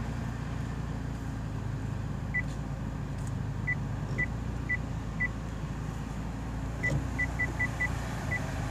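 Maruti Suzuki Baleno running at idle with a low hum, while its reverse parking sensor gives short high beeps. The beeps start a couple of seconds in at about two a second and quicken to about five a second near the end, the sensor's sign that the car is closing on an obstacle.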